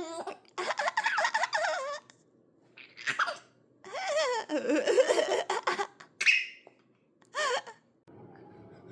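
A baby laughing in about five short bursts of giggles, with pauses between them.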